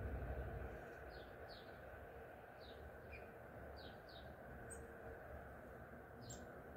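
Small birds chirping faintly: about a dozen short, high chirps, each sliding downward, scattered irregularly. Under them is a low background rumble that fades away within the first second.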